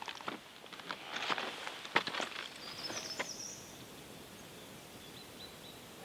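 Scattered rustles and clicks, with one sharp click about two seconds in, then a bird's brief high chirps. After that only a faint, steady outdoor background remains.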